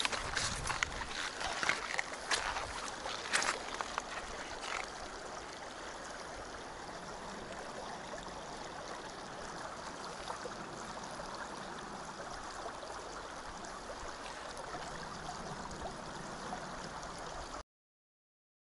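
Shallow, stony river flowing with a steady rush and gurgle. Several sharp knocks sound over it in the first few seconds, and the sound cuts off suddenly near the end.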